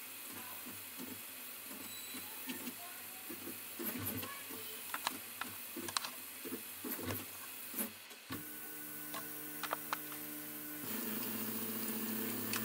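Prusa i3 FDM 3D printer printing: its stepper motors give short, changing tones and ticks as the print head makes small moves. About eight seconds in they settle into steady humming tones, which grow louder about eleven seconds in.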